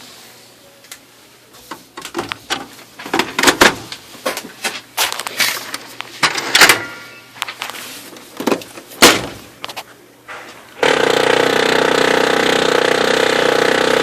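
Irregular clicks and knocks, then about eleven seconds in an Oki MB480 printer's mechanism starts a loud, steady grinding: the noise of a replacement unit that throws errors and jams.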